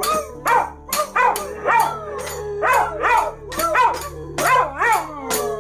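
Dog giving a run of short howling yelps, about two a second, each rising and falling in pitch, over background music with a tambourine-like beat.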